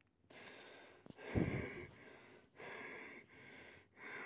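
A person breathing hard in a series of ragged gasps, a breath roughly every half second to second. The loudest gasp comes about a second and a half in, with a low thud under it.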